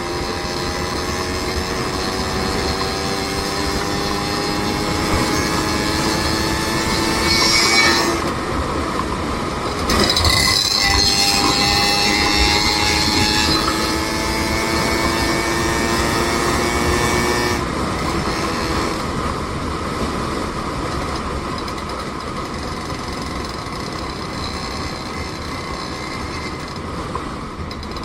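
Vehicle running while travelling, with a whine of several tones that climbs slowly in pitch as it speeds up. The whine breaks off about eight seconds in, climbs again, then levels out into a steady run.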